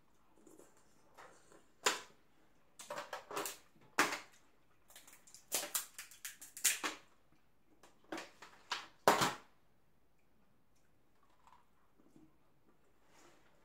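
Steamed crab legs being snapped and cracked apart by hand: an irregular run of sharp shell cracks and crunches over several seconds, the loudest crack about nine seconds in, then stopping.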